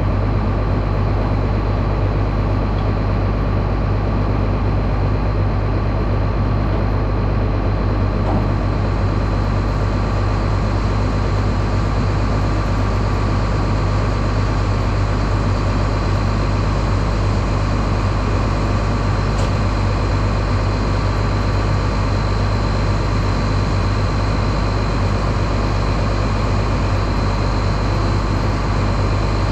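Massey Ferguson 9690 combine's diesel engine running steadily at a constant speed: a heavy low drone with a thin, steady whine above it.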